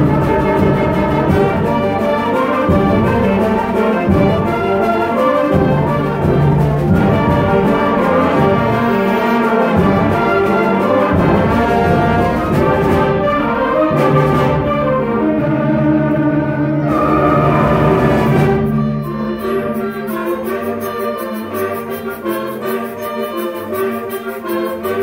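Student concert band playing a loud full-band passage with brass prominent. About three-quarters of the way through, it drops to a quieter, lighter passage over a held low note.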